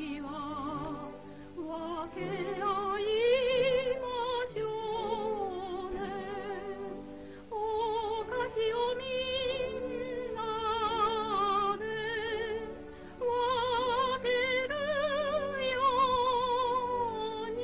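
Operatic-style film score from an old soundtrack: an orchestral accompaniment under a slow melody carried with heavy vibrato, dull-sounding, with nothing above the upper midrange.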